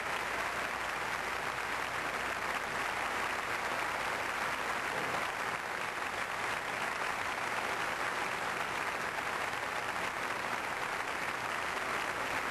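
A large arena crowd applauding steadily, a dense even clapping without let-up.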